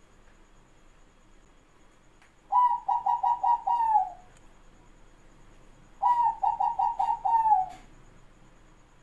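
Zebra dove (perkutut) cooing: two phrases, each a quick run of short notes ending in a longer falling note.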